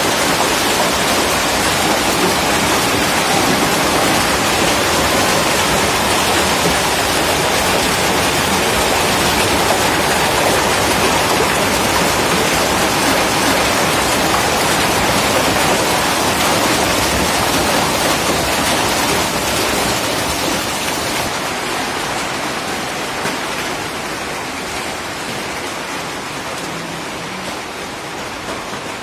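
Heavy hailstorm: hail and rain pelting down on the ground and surrounding surfaces in a steady, dense hiss, growing fainter over the last several seconds.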